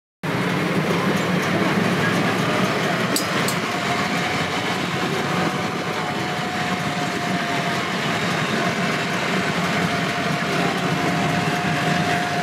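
Running noise of an open-sided tourist tram carrying passengers: a steady engine and rolling rumble with a thin steady whine that sets in a few seconds in, and a couple of sharp rattling ticks near the start.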